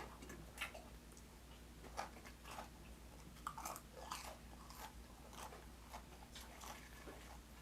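Close-miked eating sounds: soft chewing and mouth smacks coming as faint, irregular clicks a few times a second.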